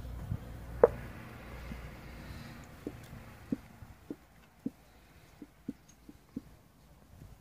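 A sharp click about a second in, then a run of light taps about every half second, over a low rumble that fades after the first couple of seconds.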